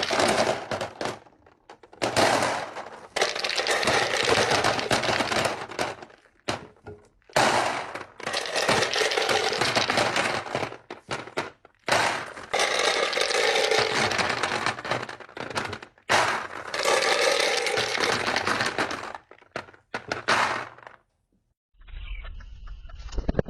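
Repeated bursts of crunching and cracking, each lasting a couple of seconds with short pauses between, as something brittle is crushed or broken apart. About 22 seconds in it gives way to a quieter sound with a low rumble.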